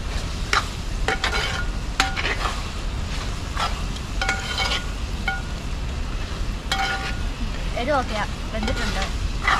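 A ladle stirring and scraping in a pot of cooking beef heart curry, with several sharp clinks against the pot, some of which ring briefly.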